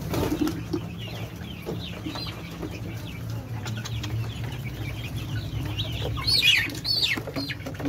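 Young kampung chickens in a coop peeping in short high calls, with a louder flurry of peeps about six to seven seconds in, over a steady low hum.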